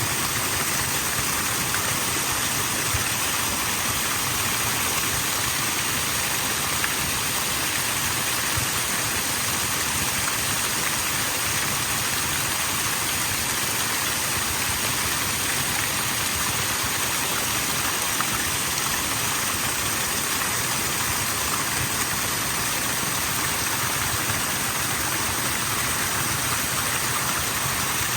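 Shiraito Falls, a wide curtain of many thin streams of water spilling over a rock face: a steady hiss of falling water that stays even throughout.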